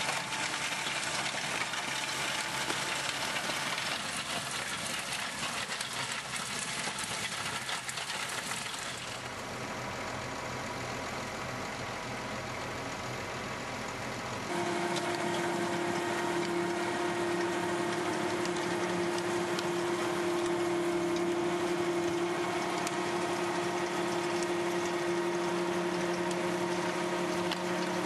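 A tractor-driven Valentini FR implement working the ground, heard as a steady mechanical din of engine and rotor. The sound shifts at two cuts, and after the second, about halfway through, a steady whine of a few held tones sits over the machine noise.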